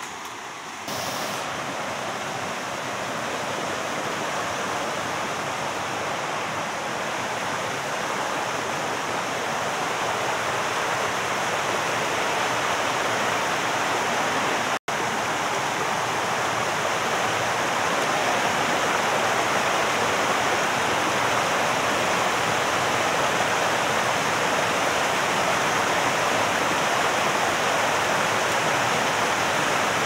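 Rushing water of a rocky stream and waterfall cascading over boulders, a steady hiss that grows louder as the waterfall is approached, with a split-second dropout about halfway.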